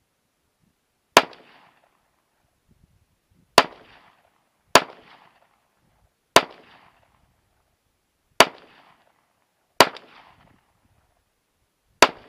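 Seven single shots from a Smith & Wesson M&P 9mm pistol, fired slowly at uneven intervals of one to two and a half seconds. Each sharp crack is followed by a brief echo that dies away.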